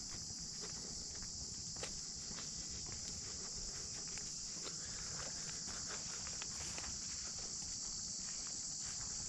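A steady, unbroken high-pitched insect chorus drones through the woods, with the soft crunch and scuff of footsteps on a dirt trail and a few light clicks beneath it.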